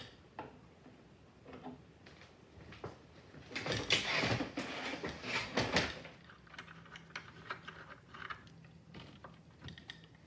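Hand work on parts in a workshop: scattered clicks and knocks, with a louder stretch of rattling or scraping about four seconds in that lasts two seconds or so.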